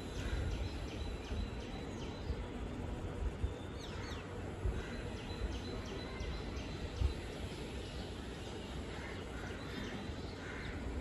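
Birds chirping in short, evenly repeated notes, with a quick falling call about four seconds in, over a steady low background rumble.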